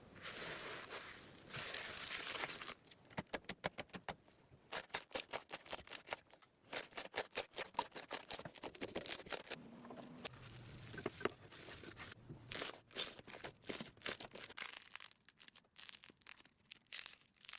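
Slime being squeezed and stretched by hand: a short rustling hiss, then a long run of quick sticky clicks and pops that thins out near the end.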